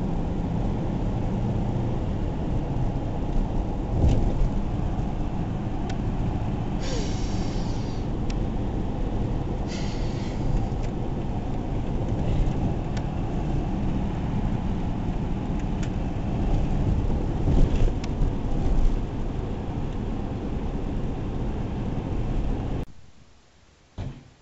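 Steady road and engine rumble inside a moving car's cabin, with a few louder knocks along the way. It cuts off suddenly a second or two before the end.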